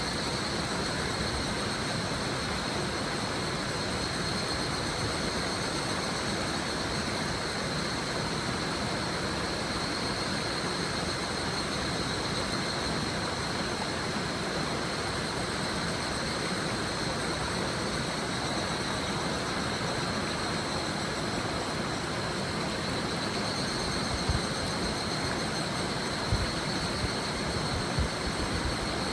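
Steady rush of a shallow river with higurashi (evening cicadas) calling in a high continuous trill, which swells louder around the middle and again near the end. A few soft low thumps come near the end.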